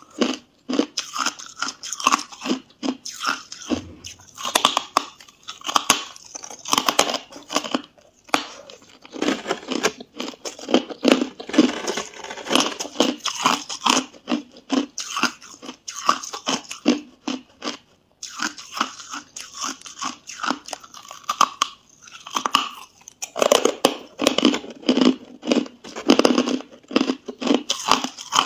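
Close-up crunching of hard, frost-coated ice being bitten and chewed: a dense run of sharp cracks and crunches, broken by a few short pauses between bites.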